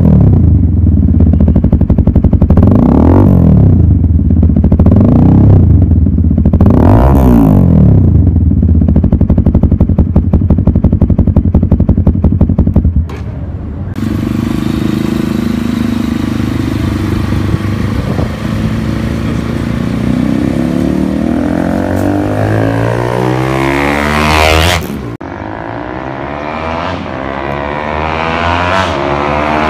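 Bajaj Pulsar's single-cylinder engine breathing through a small aftermarket Akrapovic-style GP silencer, idling and revved in several short blips. About halfway through, the bike is ridden along the road. Its loud exhaust note climbs to a peak as it comes close, then drops in pitch as it passes and moves away.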